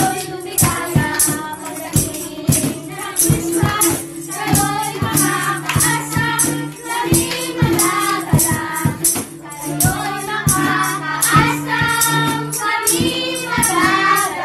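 Children singing a song together, with a tambourine struck on the beat about twice a second over a steady accompaniment.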